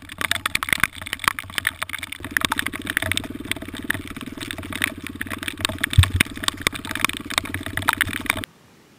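Motorcycle engine running while riding over rough meadow, heard from an onboard camera, with many sharp knocks and rattles from the bumpy ground. About two seconds in the engine settles into an even, steady note. The sound cuts off suddenly near the end.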